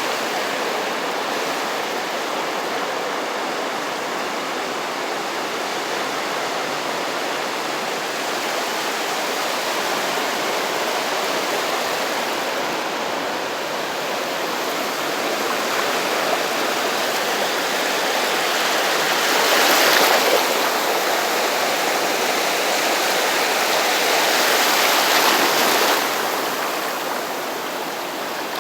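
Small ocean waves breaking and washing up the shore in a steady rush of surf, swelling louder with two bigger breaks, one about two-thirds of the way in and another near the end.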